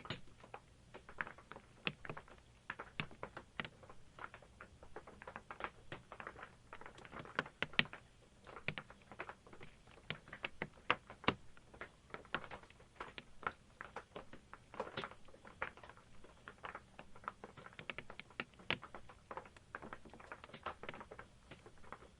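Raindrops pattering and tapping irregularly on an RV's roof, heard from inside, with a faint steady hum underneath.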